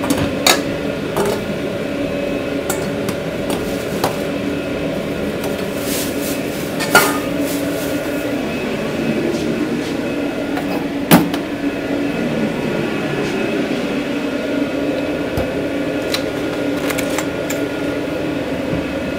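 Steady hum of running kitchen equipment, with utensils and pans clinking and a few sharp knocks, the loudest about seven and eleven seconds in.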